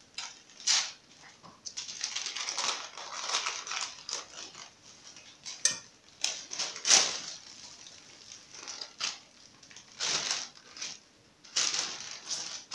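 Sheet of baking parchment paper rustling and crinkling in irregular bursts as it is cut with scissors and then lifted and handled, with a few sharp clicks.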